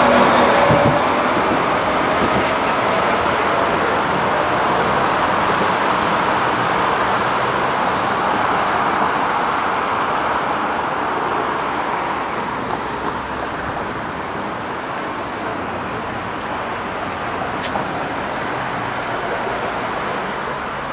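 Steady city traffic noise, with a tram's rising motor whine dying away about a second in.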